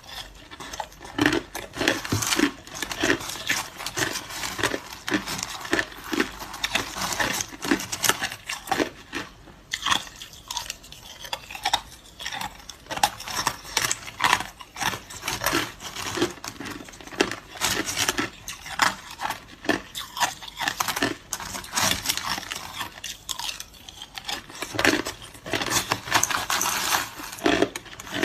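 Hard crushed ice being bitten and chewed close to the microphone: a dense, irregular run of sharp crunches.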